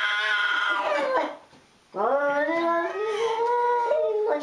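Domestic cat caterwauling: a long yowl that trails off about a second in, then after a short pause a second drawn-out yowl that rises and then falls. It is a cat's territorial yowl at another cat across a glass door.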